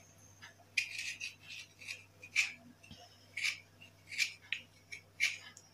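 Knife blade scraping the wet, chalky outer layer off a stone block in short strokes, about two a second, starting about a second in; the scraping removes the gritty surface layer.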